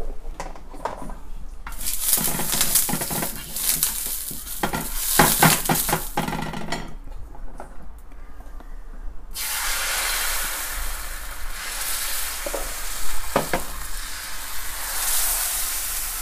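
Oiled hot frying pan sizzling in spurts, then about nine seconds in a loud, steady sizzle starts as appam batter is poured in and swirled around the pan. A couple of knocks come from the pan partway through.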